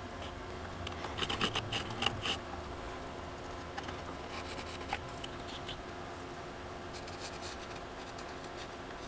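Pencil scratching on wood as it traces around an old wooden machete handle scale held on a wooden block, in short clusters of strokes with light clicks as the pieces are shifted.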